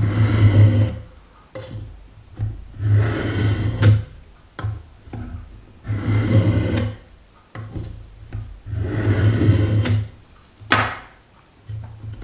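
Knife blade drawn along the coarsest plate of a Work Sharp Guided Sharpening System: four rasping strokes about a second long, roughly every three seconds, with a sharp click near the end over a steady low hum.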